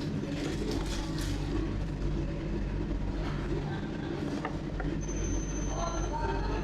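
Steady low rumble of a train running, with scattered light clicks and a brief high, steady whine about five seconds in.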